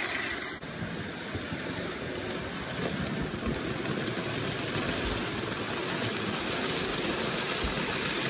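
Model train running on its layout: a steady whir and rolling noise from the locomotive's small electric motor and the wheels of the freight wagons on the rails.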